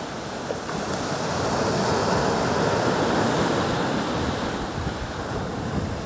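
Small sea waves washing in over a pebble beach, a steady surf hiss that swells about a second in and eases slightly near the end.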